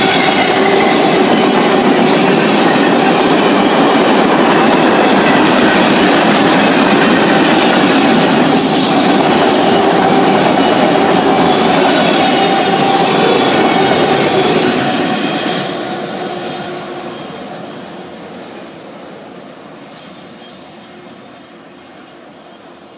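Freight train of autorack cars rolling past close by: steady wheel-on-rail noise with a few held tones in it. About fifteen seconds in the last cars pass and the sound fades steadily as the train moves away.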